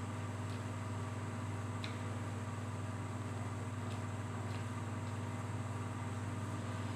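Steady low machine hum, as from an electric fan or motor, even throughout. A few faint soft clicks of chewing and eating come through it, the clearest about two seconds in.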